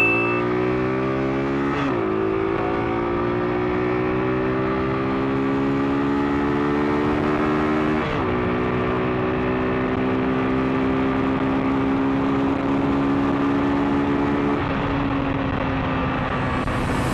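Yamaha FZ V2 motorcycle's single-cylinder engine, fitted with a K&N pod air filter, pulling hard up through the gears: the engine note rises, drops sharply at two upshifts about 2 and 8 seconds in, then holds a steady cruise and eases off slightly near the end. Wind rush runs under the engine.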